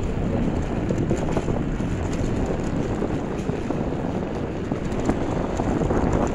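Wind rushing over the microphone, mixed with the steady rumble of an electric scooter rolling along the boardwalk.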